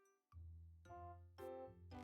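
Quiet background music on a keyboard instrument. A held chord fades out, then a new phrase begins about a third of a second in, with a bass line under a series of short piano-like notes.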